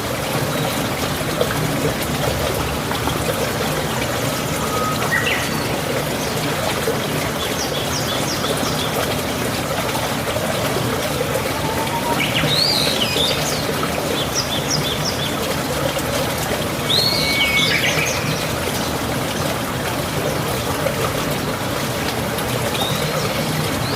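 Birds chirping in short calls now and then over a steady rushing noise.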